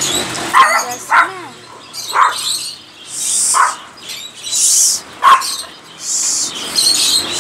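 A small dog barking in short, sharp single barks, about five of them spaced a second or more apart, with a few one-second bursts of hiss in between.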